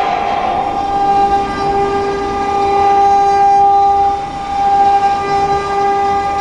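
CNC router spindle whining at a steady pitch as its bit mills a pocket in a block of wood. The lower part of the whine drops out briefly about four seconds in.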